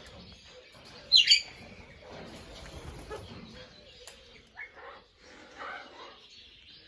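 Parrots calling: a loud, sharp two-part squawk about a second in, then softer chirps and calls.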